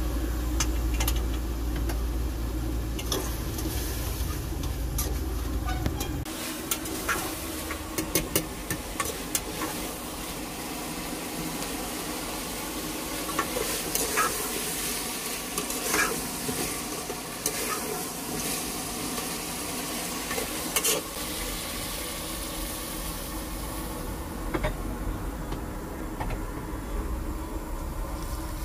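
Chicken sizzling as it fries in a pan and is stirred, with a metal spoon clicking and scraping against the pan every so often. A low rumble underneath stops suddenly about six seconds in.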